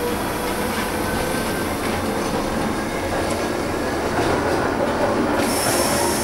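Monte Generoso rack railway train running, heard from inside the car: a steady rolling rumble with faint steady tones, and a high hiss with a thin whine that comes in suddenly near the end.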